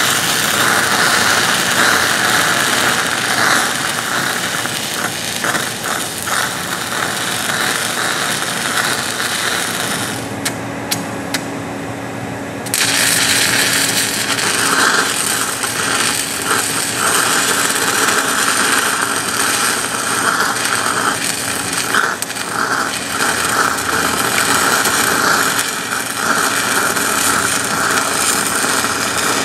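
Stick-welding arc from a 6010 electrode crackling and sputtering steadily during an open-root pipe pass. About ten seconds in the crackle drops away for roughly two and a half seconds, with a few short crackles, then picks up again.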